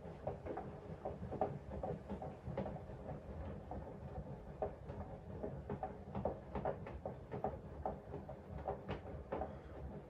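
Bosch Serie 4 front-loading washing machine mid-wash, its drum tumbling wet laundry: a low, steady motor and drum rumble with irregular soft splashes and knocks as the clothes and water drop inside the drum. The machine runs very quietly.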